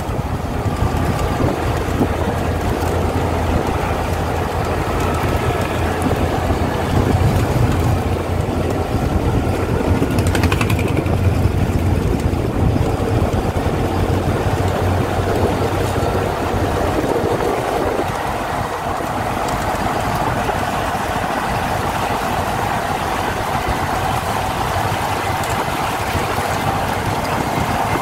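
Steady engine and tyre noise of a road vehicle driving across a bridge. A low engine drone drops away about two-thirds of the way through.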